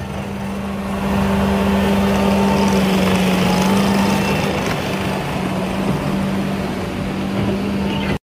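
Small engine of a Ditch Witch SK1550 stand-on mini tracked loader running at a steady, constant pitch as it drives, stopping abruptly just before the end.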